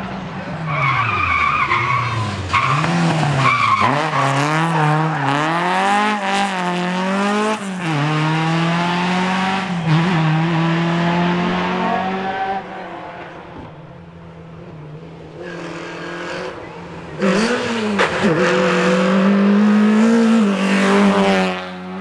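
Rally cars at full throttle, engines revving up and dropping back with each gear change, with tyre squeal in the first few seconds. Near the end a Peugeot 306 rally car comes through a corner at high revs.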